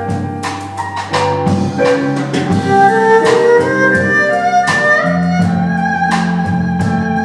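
Instrumental music played on a keyboard: a melody of struck notes over held, sustained chords.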